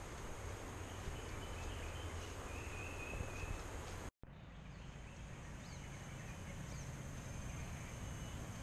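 Steady outdoor background noise with a low rumble and a few faint bird chirps. The sound drops out completely for an instant a little after four seconds.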